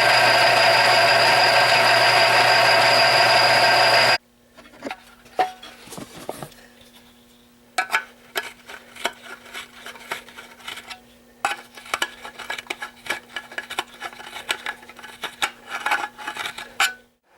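Electric drill running steadily for about four seconds to drill a hole in the heater's sheet-metal cover, stopping abruptly. Then metal tools and parts clatter and click, with a faint steady hum underneath.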